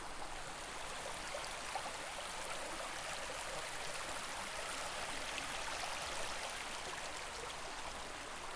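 Small mountain creek rushing over rocks and around fallen logs: a steady, even rush of water.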